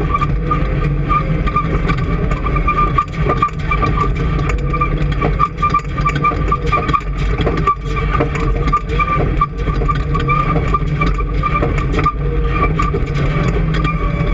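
A vehicle engine running steadily and loudly, with a constant high whine over its drone and no clear revving up or down.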